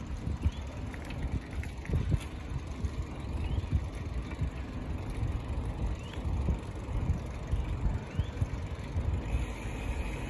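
Wind buffeting the microphone of a camera on a moving bicycle: an uneven low rumble with gusty peaks, along with faint short rising chirps about every second and a half.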